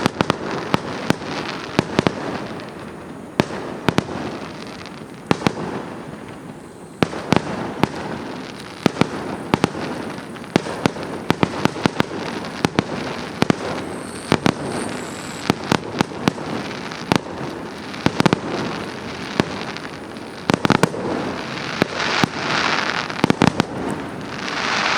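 Aerial fireworks display: many sharp bangs of shells bursting, several a second at times, over continuous crackling. Near the end a longer hissing, crackling swell builds up.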